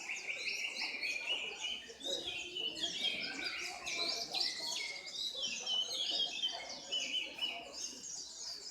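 Many white-eyes (pleci) singing at once: a dense, unbroken chorus of quick, high chirps and trills, one song overlapping the next.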